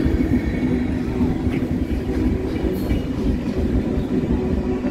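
Passenger train rolling on the tracks of a railway bridge: a steady low rumble.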